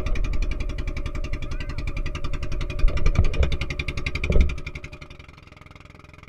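Outrigger boat (bangka) engine running steadily with a rapid, even putter, with a couple of low thumps, fading out about five seconds in.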